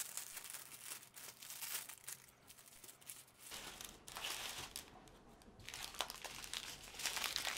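Clear plastic bags of diamond-painting drills crinkling and rustling as they are handled and spread out, in bunches of crackle with a quieter spell about two-thirds of the way through.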